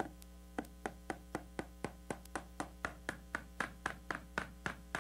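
Hammer driving a finish nail into wooden quarter-round trim: a steady run of light blows, about four a second, after a single first strike.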